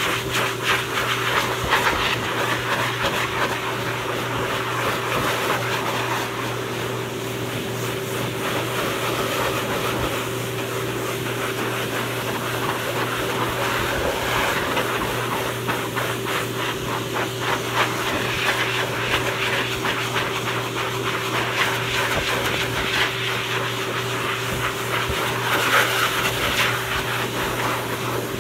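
Dog grooming blower dryer running steadily, air rushing from its hose nozzle onto a wet dog's coat over a constant low motor hum.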